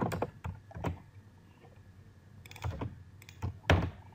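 Computer keyboard keys clicking as someone types, in two short runs of keystrokes with a brief pause between them.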